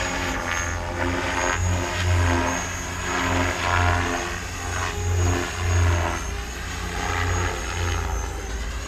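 KDS Innova 550 electric RC helicopter flying aerobatics, its 520mm main rotor blades slapping the air in swells that rise and fade about once a second as it manoeuvres. A thin, steady high-pitched whine runs underneath.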